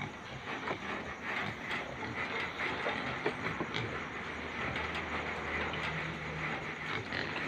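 A herd of pigs and piglets feeding and rooting: a dense run of small clicks and knocks over a steady hiss.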